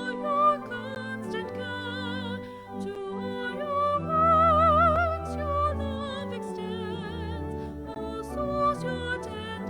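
Church music: a solo singer with a wide vibrato holds long melodic notes over sustained accompaniment chords.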